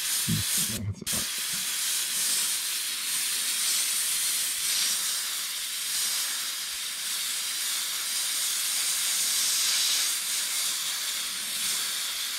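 Badger Anthem 155 airbrush hissing steadily as compressed air and paint spray from its tip. The air cuts out briefly about a second in, then runs on with small swells.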